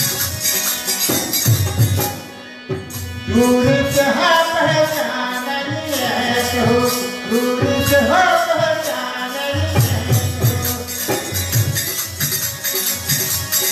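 Devotional bhajan music: a dholak drum and jingling hand percussion keep a steady rhythm under a harmonium, with a sung melody line from about three seconds in. The music drops briefly just before the singing comes in.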